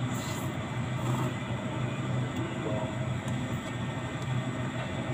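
Steady low mechanical hum and rumble in the background, with two short slurps of noodles from a cup about a second apart near the start.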